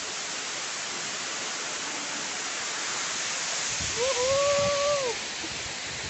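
Steady rush of a tall waterfall pouring into a pool. About four seconds in, one drawn-out call lasting about a second rises in pitch, holds, then falls away.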